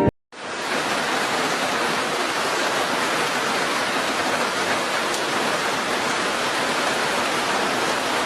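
Steady, even rushing noise with no calls or tones in it. It fades in just after the start and cuts off abruptly near the end.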